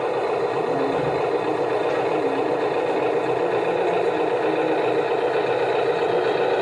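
Steady whirring and rattling of radio-controlled construction models running, with an even, unchanging pitch.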